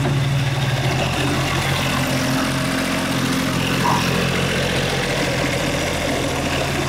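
Mini excavator engine running steadily as the arm and bucket dig.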